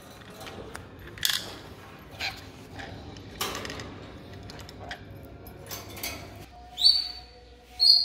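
A lorikeet working at a small plastic toy car on a tile floor, making a few short, sharp sounds about a second apart. Near the end a louder, high chirping sound starts.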